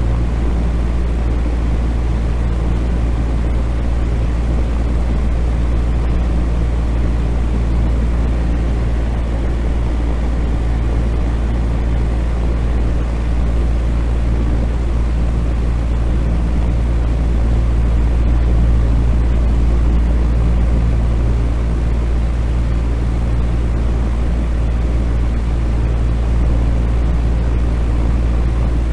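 Electric fan (ventilator) running steadily: a constant low hum under an even rush of air, with no change in speed.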